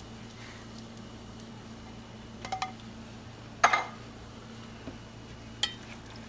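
Metal cookware and cans clinking against a cooking pot: a quick double clink about two and a half seconds in, a louder ringing clink a second later and a lighter one near the end, over a steady low hum.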